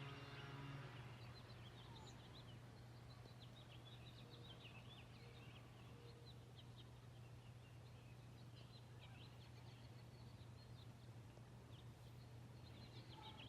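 Faint chirping of small birds, many short high calls scattered throughout, over a steady low hum. A held musical tone fades out in the first second, and everything cuts off abruptly at the very end.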